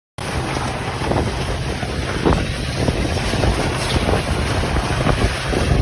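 Strong wind buffeting the microphone, a steady low rumble with irregular gusts.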